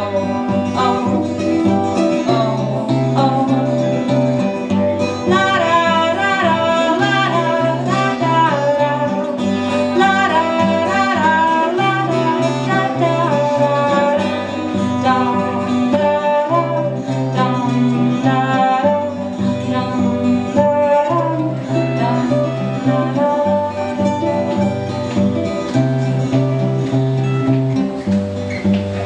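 A woman singing a song with two acoustic guitars accompanying her, played live.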